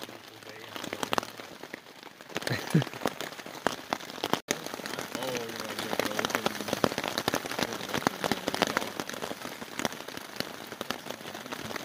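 Rain falling hard, with a dense, irregular patter of drops striking a surface close by.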